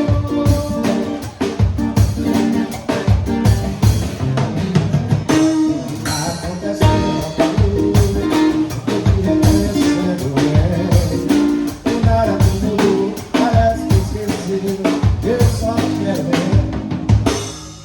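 Live band playing a song: a drum kit keeps a steady beat under electric guitar and a singing voice.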